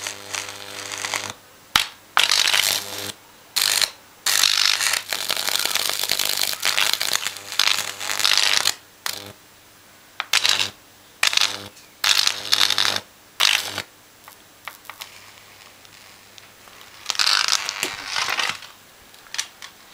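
High-voltage arc from a microwave oven transformer burning across a motherboard, crackling and buzzing in a series of bursts that start and stop abruptly, over the transformer's steady mains hum.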